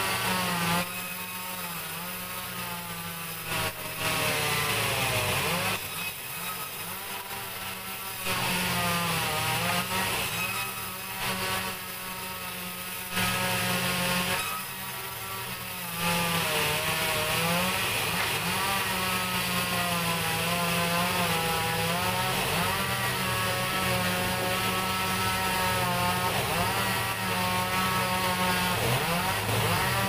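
Sawmill band saw running and cutting through a timber slab, its drive drone wavering in pitch as the wood is fed. For the first half, louder cutting spells alternate with quieter ones; from about halfway it cuts steadily.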